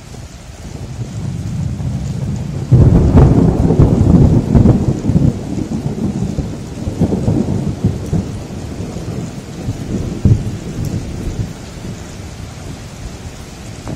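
Heavy rain falling steadily while thunder builds into a loud crash about three seconds in, then rolls and rumbles for several seconds, with one more sharp peak near ten seconds before easing back.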